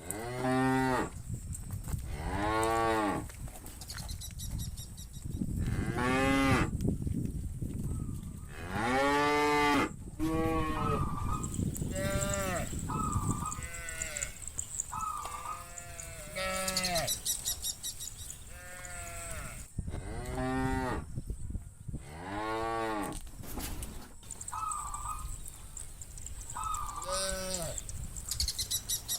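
A herd of cows mooing, one call after another every second or two, some overlapping. Each moo is drawn out, rising and then falling in pitch.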